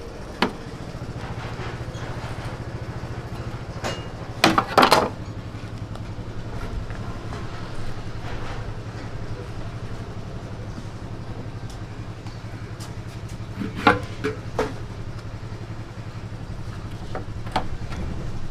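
Steady low machine hum, with a few sharp knocks and clatters of a cooked pig's head being handled on a steel tray: one about half a second in, a cluster around four to five seconds in, and another near fourteen seconds.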